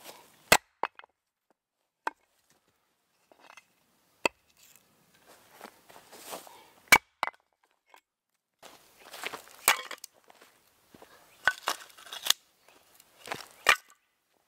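Sharp, single strikes splitting a log on a wooden chopping stump, spaced irregularly through the first half. From about nine seconds in, split firewood pieces clatter and knock together as they are laid onto a pile.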